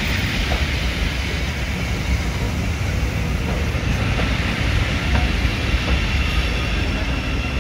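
A train running past on the track: a steady rumble of wheels on rail with faint clicks at the rail joints.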